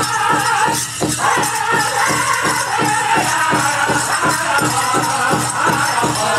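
Powwow drum group singing a chicken-dance song in high voices over a steady drumbeat of about three beats a second; the singing breaks off briefly about a second in, then resumes.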